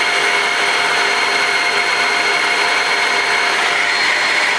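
Shark Rocket mains-powered handheld vacuum running with its motorised brush head on setting one, the slow brush speed for hard floors. It gives a steady, loud whine with several even tones and begins to wind down as it is switched off at the very end.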